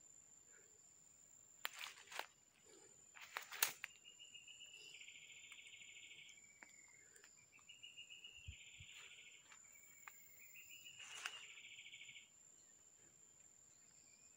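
Footsteps crunching through dry leaf litter and twigs, with two sharp cracks in the first few seconds. An insect gives a buzzy trill three times, about three seconds apart, over a steady high-pitched whine.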